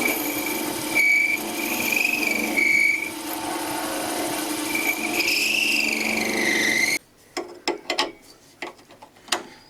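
Wood lathe running while a small dowel is cut down to size with a spanner held against it, the cut giving a high squealing whistle that wavers in pitch over a steady motor hum. About seven seconds in it stops suddenly, followed by a few light clicks and taps.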